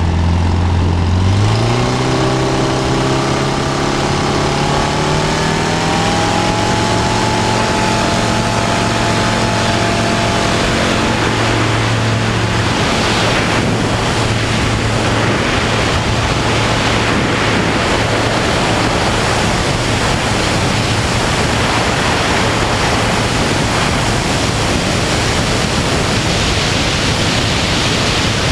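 Single-engine light aircraft's piston engine and propeller spooling up to full takeoff power, rising in pitch over the first few seconds and then holding steady during the ground roll. From about twelve seconds in, as the plane lifts off and climbs, a loud rush of wind over the wing-mounted camera drowns out most of the engine.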